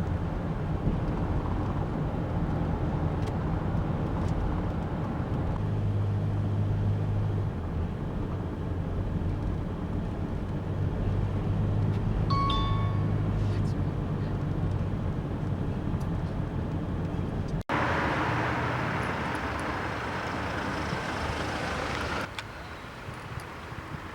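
Steady engine and road noise inside a moving car's cabin, with a short electronic chime about twelve seconds in. After an abrupt break near eighteen seconds, a brighter rushing noise runs for a few seconds and then drops away.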